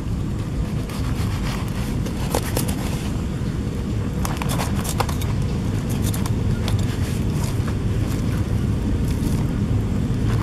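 Steady low rumble of wind on the microphone, with scattered light crackles and scrapes as hands work a charred grilled fish in its split bamboo skewer.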